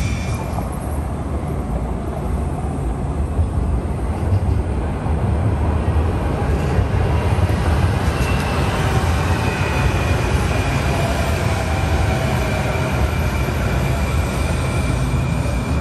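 Light rail train running past on street track: a steady low rumble of wheels on rails, with a faint whine over it in the second half.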